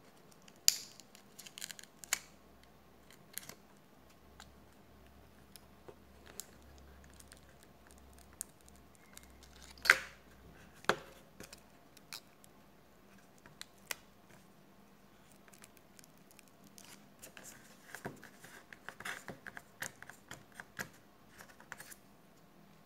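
A thin pry tool scraping and clicking along the edge of a Samsung Galaxy J3 (2016) phone screen as the glued display is prised from the frame. Scattered sharp snaps, the loudest about ten seconds in, then a run of quick small scratches near the end.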